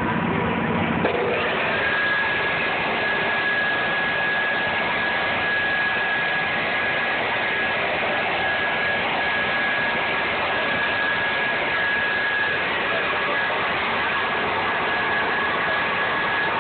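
Electric air blower inflating a water walking ball through its opening: a steady rush of air that starts about a second in, with a thin, steady whistle over it.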